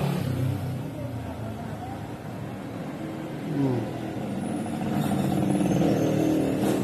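A motor vehicle engine running, with a falling pitch about halfway through and growing louder over the last two seconds.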